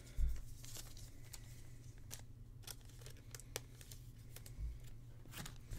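Foil wrapper of a trading-card pack crinkling and tearing as it is opened by hand, with scattered faint rustles and clicks. There are two soft low bumps, one just after the start and one near the end.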